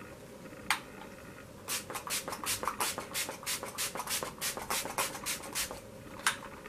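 Pump-action setting spray bottle misting onto the face: one spritz, then a fast run of short spritzes at about five a second, and a last spritz near the end.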